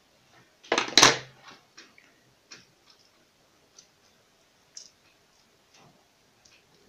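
A loud clatter of metal scissors about a second in, then scattered light clicks and ticks of small plastic and metal parts being fitted together on a 12 V air pump's power cord.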